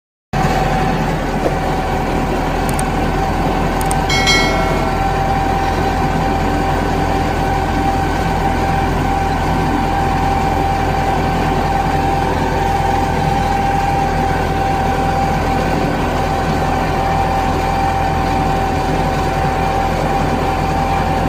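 IMT 577 tractor's diesel engine running steadily under load, heard from inside the cab while the tractor pulls a SIP Tornado 70 forage harvester through standing corn. A steady whine runs throughout, with a brief metallic clatter about four seconds in.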